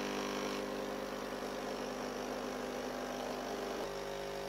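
Nescafé Dolce Gusto capsule coffee machine brewing: its pump hums steadily as coffee pours into a mug, the hum shifting slightly in pitch near the end.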